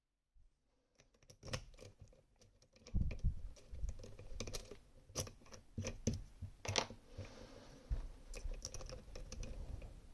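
Irregular small clicks and scratches of hand tools working in a Rosengrens 32A81H lock, as it is being picked.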